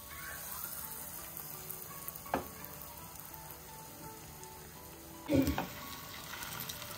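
Breadcrumb-coated veggie burger patties shallow-frying in hot oil in a non-stick pan, with a steady sizzle. There is a short knock a little over two seconds in and a louder knock about five seconds in, after which the sizzle turns more crackly as a second patty goes into the oil.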